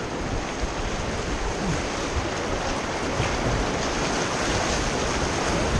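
Steady rushing of whitewater in a river rapid around the raft.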